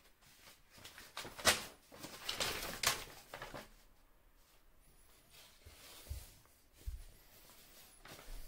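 Paper sheet rustling and crinkling as it is handled, loudest for a couple of seconds between about one and four seconds in, followed by two soft low thumps and a brief rustle near the end.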